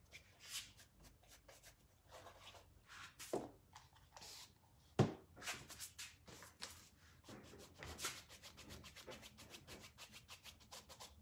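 Paintbrush dry-brushing paint onto canvas shoe fabric: faint, quick, irregular scrubbing strokes, with a couple of louder knocks about three and five seconds in.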